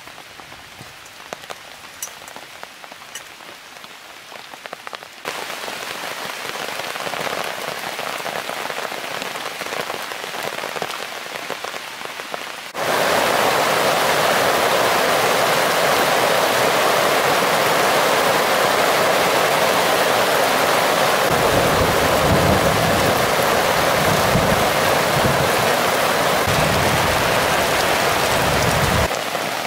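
Steady rain falling on the woods, light at first, then heavier in two steps, about five and about thirteen seconds in. A low rumble comes and goes near the end.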